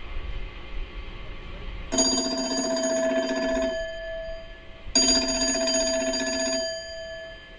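Telephone ringing twice, each ring about one and a half seconds long with about a second between them.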